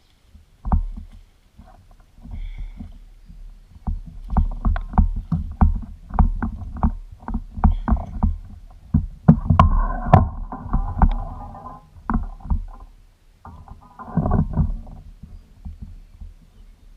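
Irregular knocks and thumps on a small fishing boat, heavy and booming, coming in quick clusters, with two short bursts of rushing, splashing noise about ten and fourteen seconds in.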